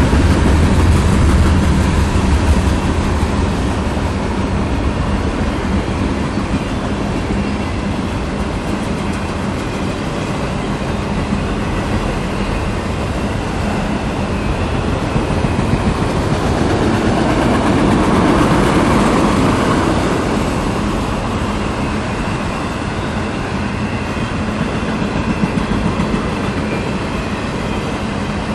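CSX freight train rolling past at close range, a steady rumble of wheels on rail, with a heavier low rumble in the first few seconds and a swell about two-thirds of the way through.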